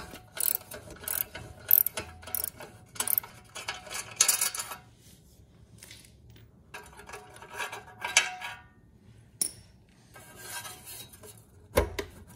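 Hand socket ratchet clicking in repeated short bursts as the exhaust bolts are backed out of the generator engine's exhaust port, with a single loud thump near the end.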